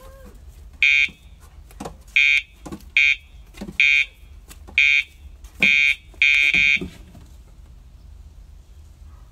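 Remote dog-training collar's pager buzzing in seven short, loud bursts at uneven intervals, the last one slightly longer, cueing the dog what to do. The buzzing stops about seven seconds in.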